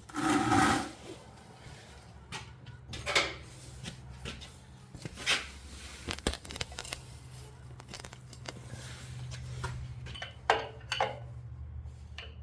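Hand tools and metal parts being handled during an oil change: scattered clanks and scrapes, the loudest right at the start, over a steady low hum.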